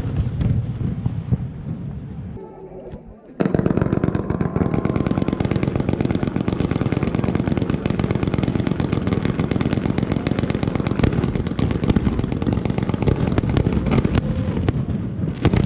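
Fireworks going off in a dense, rapid barrage of bangs and crackles that starts suddenly about three seconds in and keeps going, after a few seconds of wind noise on the microphone with scattered pops.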